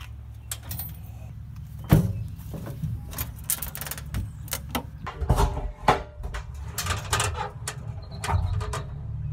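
Clanks, knocks and rattles of an aluminum diamond-plate cargo box being handled: its hinged lid and latch worked open, with a support chain and hanging key jangling. The sharpest knock comes about two seconds in, with more clatter from about five seconds on.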